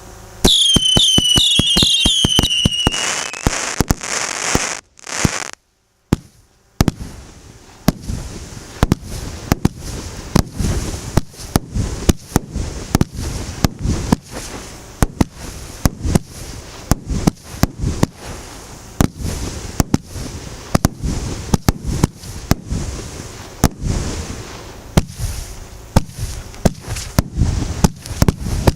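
Professional fireworks battery (a 118-shot cake of 1- to 2-inch tubes) firing. It opens with a fast volley of whistling shots whose whistles fall in pitch, then goes briefly near silent about five seconds in. From about seven seconds it fires a long, steady run of sharp shots with crackling between them.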